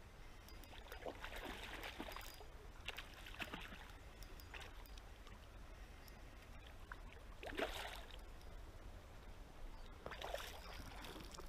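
River water running steadily, with about five brief sloshes or splashes, the loudest about two-thirds of the way through.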